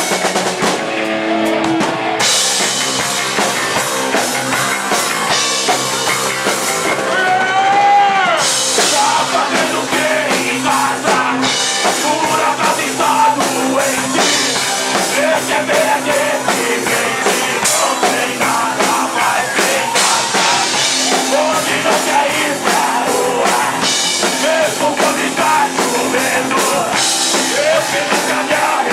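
Live rock band playing a song, with a drum kit driving the beat and a singer's voice over it.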